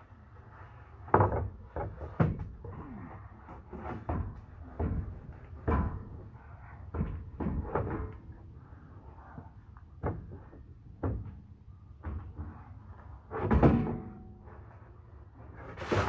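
A dozen or so irregular, heavy knocks and clunks, with a longer, louder clatter about 13 seconds in.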